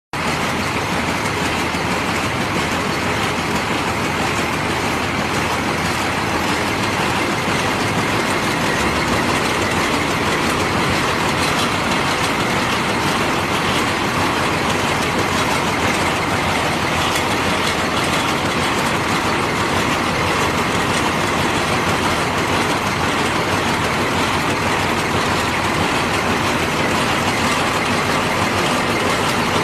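Hammer mill stone pulverizer running steadily, a loud, even machine noise with a dense rattle throughout.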